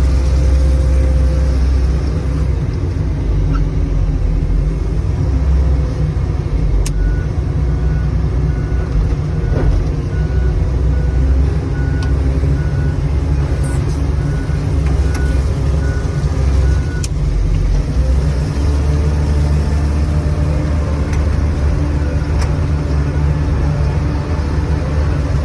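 Loader engine running steadily under load as the machine is driven. For about ten seconds in the middle, a short high beep repeats evenly, a little more than once a second.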